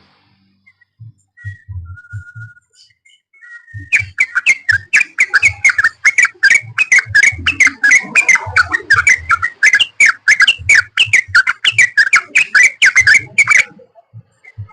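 Yellow-vented bulbul (trucukan) singing: a few scattered notes, then from about four seconds in a fast run of bubbly chattering notes, several a second, that stops shortly before the end.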